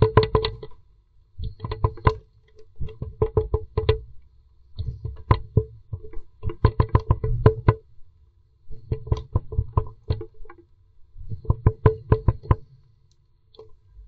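Blue tit pecking hard at the wood inside its nest box: bursts of rapid, resonant taps about a second long, repeating every second or two with short pauses between.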